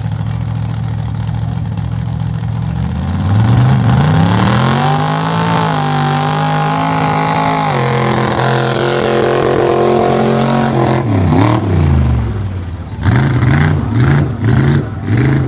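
Engine of a mud-racing vehicle revving up from a steady run, held high, then easing off. It ends with a few short blips of the throttle.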